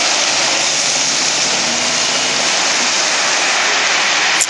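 Steady roar of road and engine noise as a gravel dump truck towing a pup trailer pulls out onto the highway and drives off, with a short click near the end.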